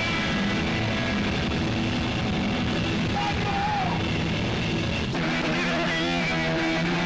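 Live rock band led by a loud Fender electric guitar, with a bent note about three seconds in. The sound changes abruptly about five seconds in.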